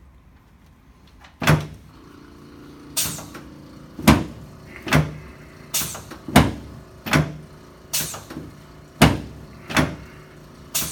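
A chiropractic adjusting table thumps about once a second under repeated quick thrusts, starting about a second and a half in: around eleven sharp knocks, each with a short low ring from the table, over a faint steady hum. These are the adjustments that correct a counter-rotated pelvis.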